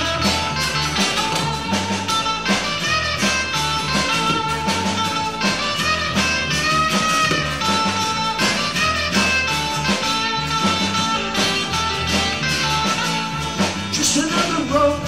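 Live band playing an instrumental passage: acoustic guitars strummed in a steady rhythm over a bass line. A voice comes in near the end.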